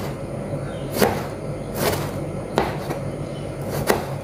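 Kitchen knife slicing a tomato thinly on a plastic cutting board: about five sharp knocks of the blade hitting the board, roughly one a second.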